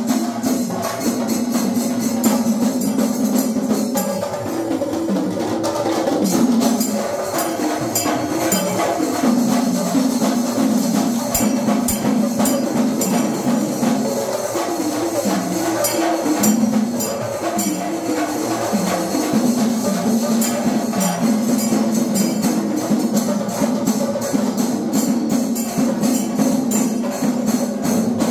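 Percussion-led music with rapid cymbal or jingle strokes over a wandering melody line, going on steadily without a break.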